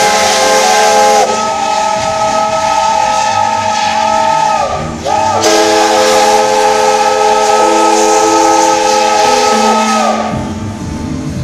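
Steam locomotive's multi-tone chime whistle blowing two long blasts over hissing steam, with a short break about five seconds in. The pitch sags as each blast closes, and the whistle stops about ten seconds in.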